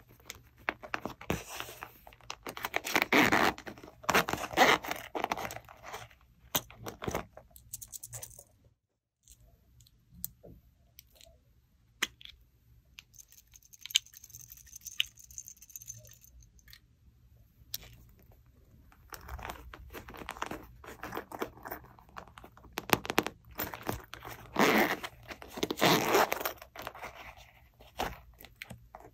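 Close-up handling of zippered faux-leather coin purses: a zipper pulled open and the purse rustling, in two loud bouts of scraping. Between them is a quieter stretch of faint ticks and light pattering as small plastic charms are tipped into a glass dish.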